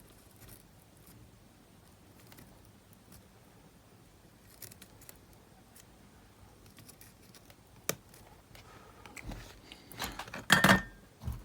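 Small metal tools and parts being handled on a workbench: faint scattered clicks, one sharp click about eight seconds in, then a burst of clattering and tapping near the end.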